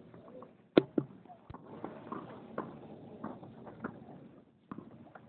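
Tennis ball being hit and bouncing on a hard court: one sharp, loud knock a little under a second in, a second knock just after it, then smaller knocks and taps.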